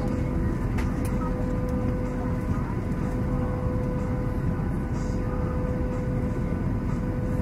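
HobbyKing Bixler 2 RC glider's electric pusher motor and propeller running steadily in flight, heard through its onboard keychain camera: a constant whine over heavy wind rush.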